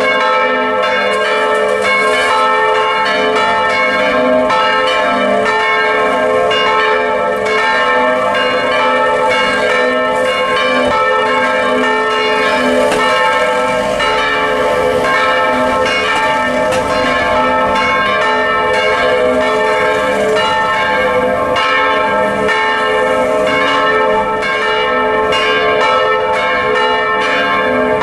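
Several church bells in a tower ringing together in full swing, set swinging by electric motors through wheels and belts, their strokes overlapping into a continuous, loud peal.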